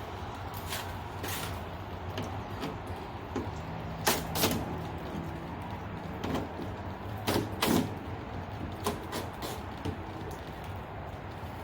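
Scattered clicks and knocks of hardware being loosened and shifted on a car's rear spoiler while a Wickerbill is adjusted for fit, with the loudest pairs about four and seven and a half seconds in, over a steady low hum.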